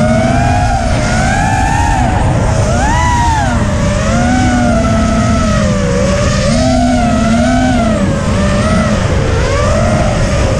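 Eachine Falcon 250 quadcopter's brushless motors and propellers whining close up, the pitch rising and falling every second or so as the throttle changes while it banks and swoops.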